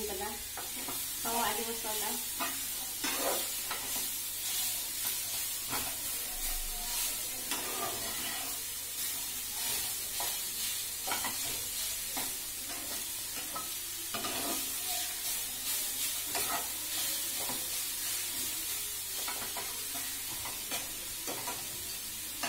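Chopped green amaranth leaves sizzling in a pan as they are stir-fried, with frequent short scrapes and taps of a spatula against the pan.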